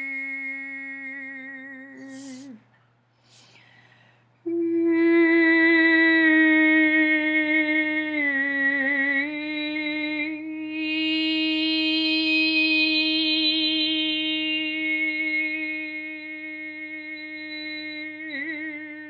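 A woman's voice toning: a long held note with overtones sounding above it, the voice bringing out different overtones in turn. The note breaks off about two and a half seconds in and comes back slightly higher a couple of seconds later, then holds to the end with a slight waver near the close.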